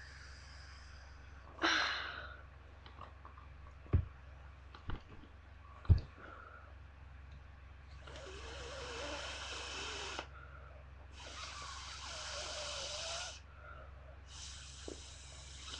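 A person blowing up a latex balloon by mouth: three long breaths blown into it in the second half, each about two seconds. Earlier there is a short rush of breath and three sharp knocks.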